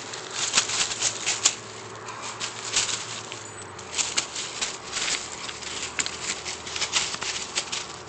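Dry fallen leaves crackling and rustling in irregular bursts as a dog paws and noses at a tennis ball among them.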